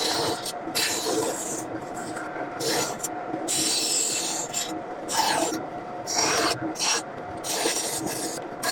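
A hand tool working wood with a rough, rasping scrape, in repeated strokes separated by short pauses.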